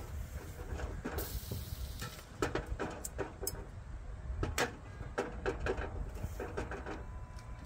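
Metal tongs clicking and tapping against a small wire grill grate as food is turned over: a quick, irregular run of light metallic clicks starting a couple of seconds in.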